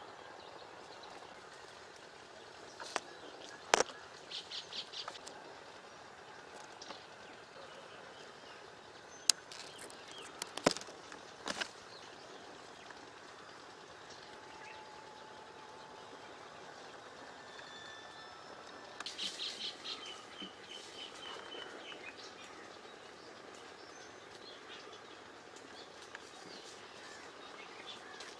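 Outdoor ambience with small birds chirping in short bursts, about four seconds in and again from about nineteen to twenty-two seconds in. A few sharp clicks fall between about three and eleven seconds in.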